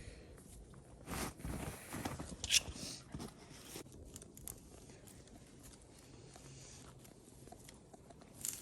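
Crunching and rustling, as of footsteps in snow and gear being handled, mostly in the first three seconds, with a sharp hiss about two and a half seconds in; faint after that.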